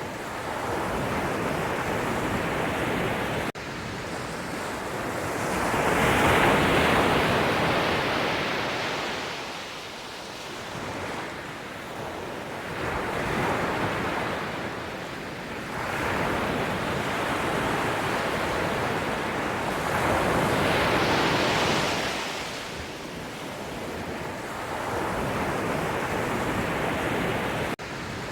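Sea waves breaking and washing ashore in repeated swells, each surge rising and then fading over several seconds, the biggest breaking about six seconds in and again about twenty seconds in.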